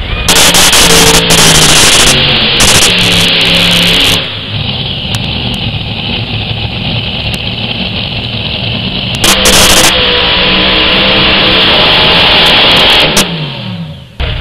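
Multi-engine modified pulling tractor at full throttle down the pulling track, loud enough that the recording distorts in stretches. A little after thirteen seconds in, the engines come off the throttle and wind down in a falling pitch as the pull ends.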